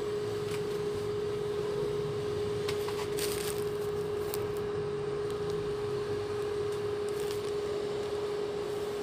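Fujika induction cooktop humming a steady mid-pitched tone while a piece of fish fries gently in oil in a nonstick pan. A few light crackles from the oil come about three seconds in.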